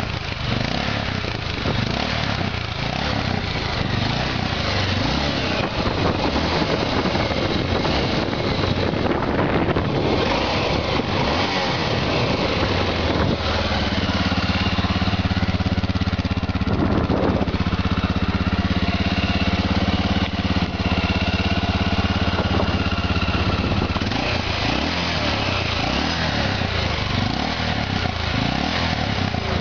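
Honda Dominator NX 650's single-cylinder four-stroke engine running on its stock exhaust, holding a steady speed from about halfway through before going rougher again near the end.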